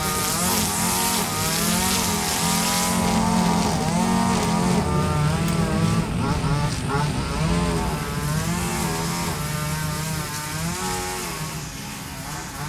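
Two-stroke string trimmer (weed eater) engine running, its pitch rising and falling as the throttle is worked while cutting weeds; it drops somewhat in level near the end.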